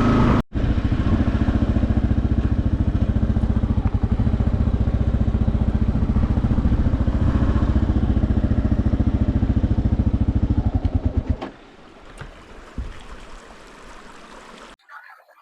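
Motorcycle engine running at low speed with an even pulsing beat, then shut off about eleven seconds in. After that come a few faint knocks and handling sounds.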